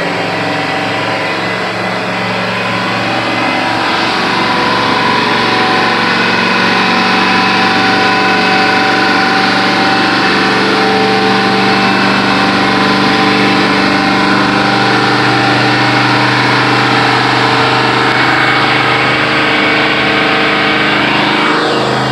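Chevy 350 MPI marine small-block V8 running steadily on a test stand, holding an even speed and getting a little louder a few seconds in.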